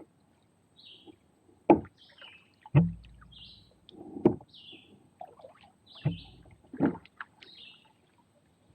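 Five sharp knocks and thumps on a plastic kayak's hull, roughly a second or so apart, as the kayak is worked along the creek. A bird chirps in short, repeated high notes between them.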